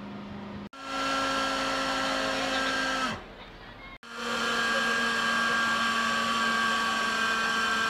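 Steady whining hum of shipboard machinery, like a motor-driven fan or blower, heard in two cuts. In the first, the pitch drops and the hum fades about three seconds in. The second runs steady.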